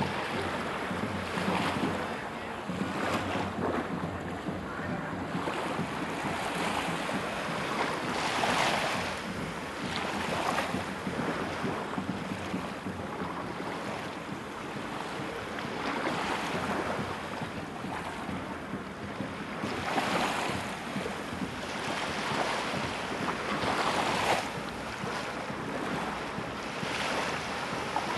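Small waves washing onto a sandy shore, swelling every few seconds, with wind rumbling on the microphone.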